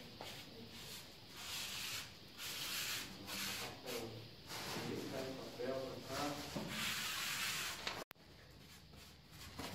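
Grey cement grout being rubbed and scraped by hand into the joints of ceramic wall tiles: gritty scraping strokes that repeat irregularly, about once a second. It goes quieter after an abrupt break about eight seconds in.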